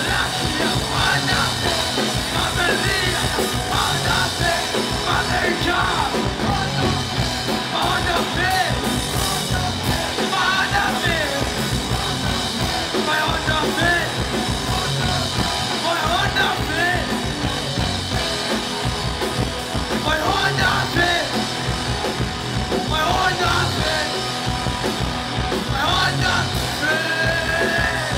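A rock band playing live, full-band and loud, with shouted vocals.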